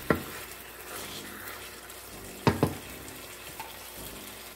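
Browned chicken sizzling in a stainless steel pot as it is stirred with a wooden spoon, the seasoning marinade just mixed in. The spoon knocks against the pot once at the start and twice in quick succession about halfway through.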